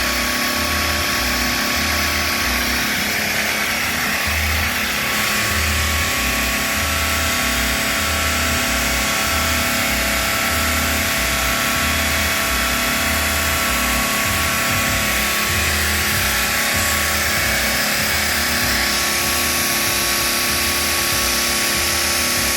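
Background music with a steady bass beat of about one pulse a second, over a continuous hiss of machine noise from a stone bridge saw's diamond blade cutting.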